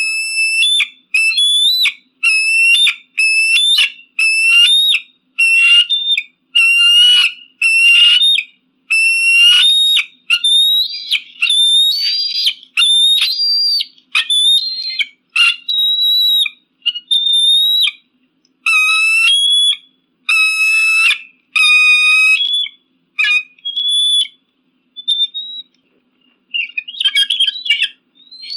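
Eagle calling: a long series of short, high whistled calls, about one or two a second, thinning out after about twenty seconds into a few scattered shorter notes.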